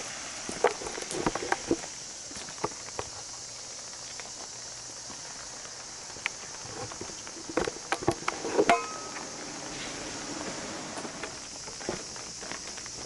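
Footsteps of a person walking, heard as two short runs of taps and scuffs over a steady high hiss.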